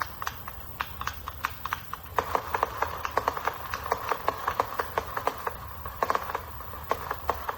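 Firework cake's last shots: a rapid, irregular string of sharp crackling pops from bursting aerial effects, stopping near the end.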